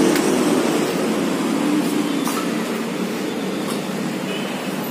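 Compressed air blowing flushing liquid through a car's air-conditioning lines: a steady rushing hiss that eases slightly toward the end.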